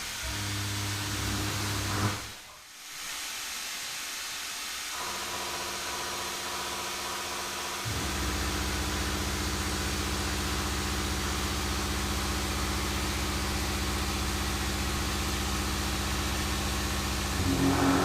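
Machine tool running with a steady hum and hiss. It dips briefly about two seconds in, and a deeper, louder hum takes over from about eight seconds.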